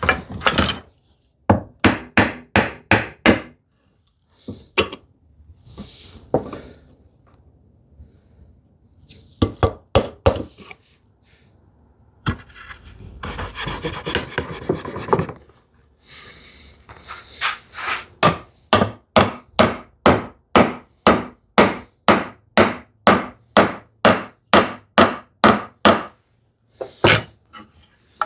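Runs of sharp mallet taps on wood, settling into a steady run of about two taps a second in the second half, with about three seconds of scraping on wood in the middle.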